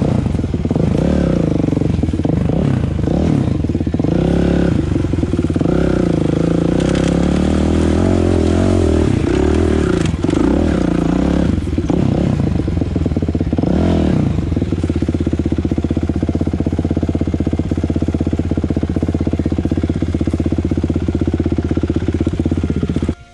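Kawasaki KX450F dirt bike's single-cylinder four-stroke engine heard on board while riding, its pitch rising and falling repeatedly with the throttle for about fifteen seconds. It then holds a steady speed and cuts off abruptly at the end.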